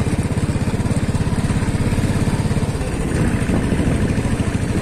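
Motorcycle engine running steadily under way, with a fast, even pulsing.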